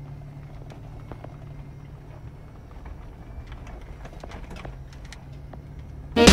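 Cabin sound of a 2001 Isuzu Trooper driving slowly over a bumpy grass track: a steady low engine hum with scattered clicks and knocks of the interior rattling over the ground. Loud music cuts in suddenly at the very end.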